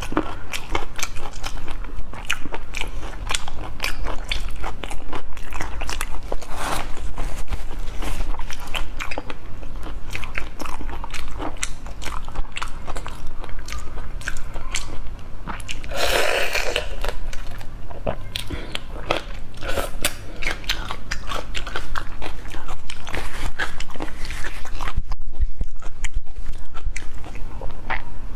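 Close-miked chewing and crunching of raw shrimp, with wet clicking mouth sounds throughout and one longer, louder wet sound about halfway through.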